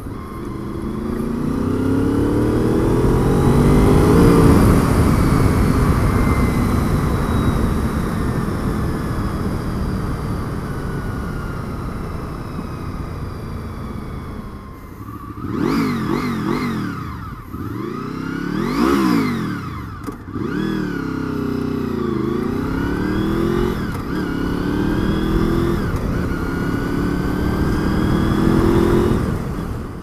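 Motorcycle engine accelerating and revving: the pitch climbs in repeated runs through the gears, with quick revs that rise and fall sharply about halfway through.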